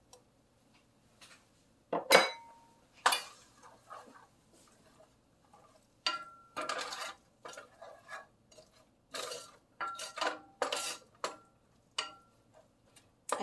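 Wooden spatula scraping and knocking against a stainless steel skillet while stirring diced vegetables and butter: two sharp knocks about two and three seconds in, then a run of short scrapes and taps in the second half, some with a brief metallic ring from the pan.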